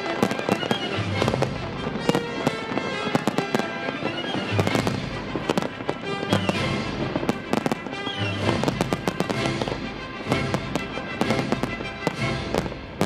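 Aerial fireworks display, shells bursting in many sharp bangs in quick succession, with music playing along.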